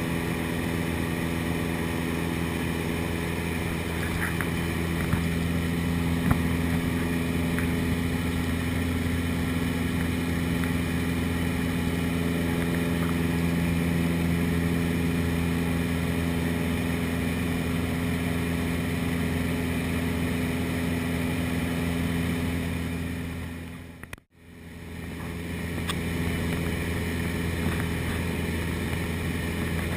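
The engine and propeller of a single-engine high-wing light plane in cruise, heard from inside the cabin as a steady drone. About three-quarters of the way through it fades out for a moment and comes straight back.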